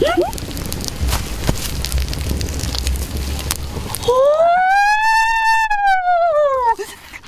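Campfire crackling with scattered pops. About four seconds in it gives way to a long, smooth whistle-like tone that rises and then falls over nearly three seconds, a comic sound effect with the background cut out beneath it.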